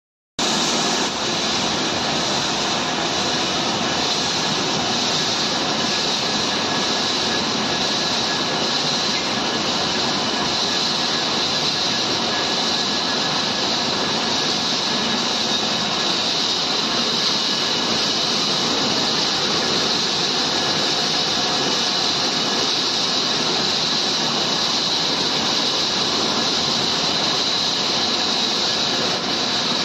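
TONY TYJ760 III biomass pellet mill running steadily while producing pellets: a continuous loud mechanical noise with a steady high whine.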